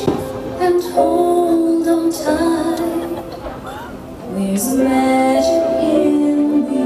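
Fireworks-show soundtrack: music with a female voice singing held notes, growing quieter around three to four seconds in, then swelling back louder.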